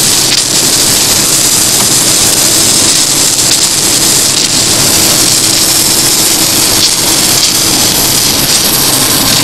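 Automatic electric arc welding on bar metal: the welding arc gives a loud, steady hiss without a break.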